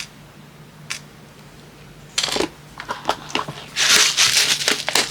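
Small jewelry findings such as lobster claw clasps being handled and rattled in their container: a single click, then a few short clusters of clattering and rustling.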